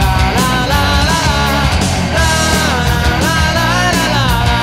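Punk rock band playing an instrumental passage: a bending lead electric guitar melody over bass and steady drums and cymbals.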